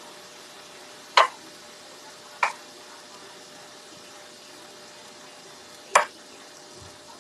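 Chicken pieces sizzling steadily in a skillet, with three sharp clacks of metal tongs against the pan as the pieces are turned, about a second in, at two and a half seconds and near six seconds.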